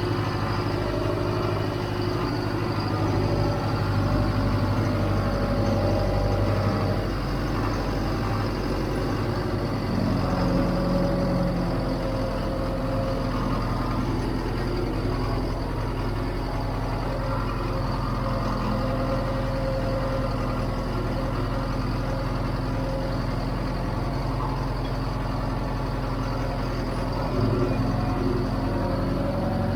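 John Deere 410 backhoe's diesel engine idling steadily, warming up after a cold start in sub-zero weather, with small shifts in its pitch about ten seconds in and near the end.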